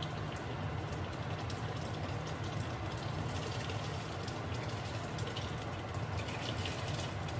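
Rice poured from a plastic bowl into a pot of boiling water: a steady bubbling hiss with many small splashes and ticks as the grains go in, over a steady low hum.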